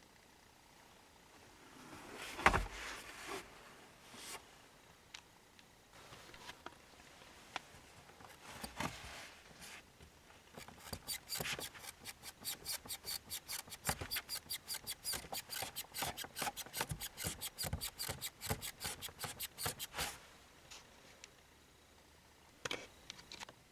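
Hand work on car interior trim: a knock about two seconds in and scattered clicks, then a run of quick, regular clicks, about four a second, lasting some ten seconds before stopping.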